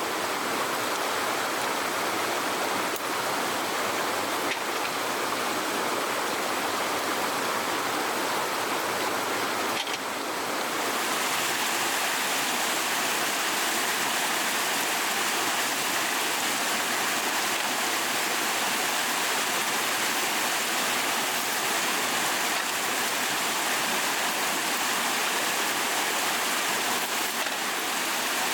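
Steady rush of flowing water, like a stream or runoff. About ten seconds in it turns brighter and a little louder.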